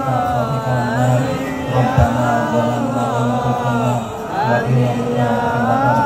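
Sholawat, blessings on the Prophet Muhammad, chanted melodically by voices through a PA system over a steady low sustained backing tone, with a single short knock about two seconds in.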